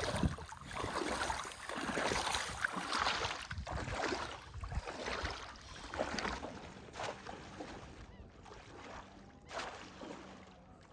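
Water sloshing and splashing around a person's legs as he wades knee-deep through shallow water, a stride about every second, growing fainter near the end.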